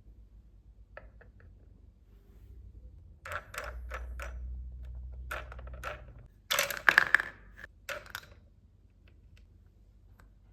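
Small hard plastic toy pieces being handled, clicking and clattering against each other in several short runs, the loudest cluster about two thirds of the way through, over a low steady rumble in the middle.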